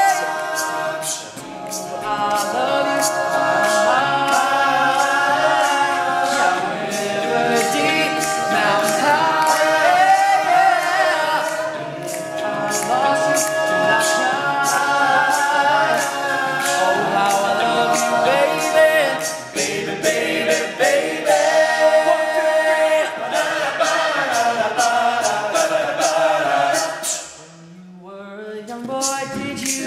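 All-male a cappella group singing in close harmony, with sharp percussive beats keeping time throughout. Near the end the singing drops out briefly, then a voice slides up in pitch.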